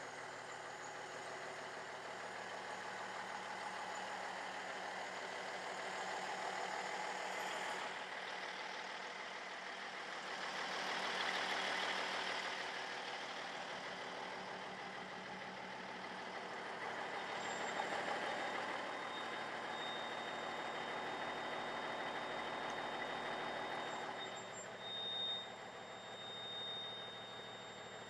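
Cummins NHC250 855-cubic-inch inline-six diesel of an M925A1 military cargo truck idling steadily, swelling louder twice along the way. A thin high steady tone joins about two-thirds of the way through.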